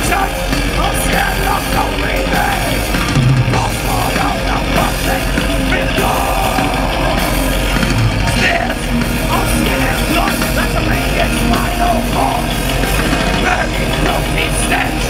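Thrash metal band playing live at full volume: distorted electric guitars, bass and drums, recorded from the crowd.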